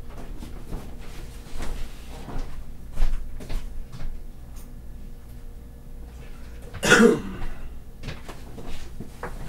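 Scattered knocks and clicks of someone moving about and handling things while fetching a screwdriver, with one short cough about seven seconds in.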